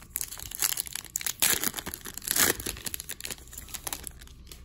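Foil wrapper of an Upper Deck hockey card pack being torn open and crinkled: a run of crackling rips, loudest about a second and a half in and again near two and a half seconds, then dying away.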